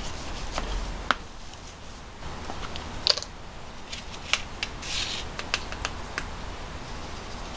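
Metal potato masher clicking and knocking against a plastic bowl while mashing boiled potatoes, in scattered sharp taps. About five seconds in, a short gritty scrape as a measuring spoon scoops from a plastic tub of white granules, followed by a few more light clicks.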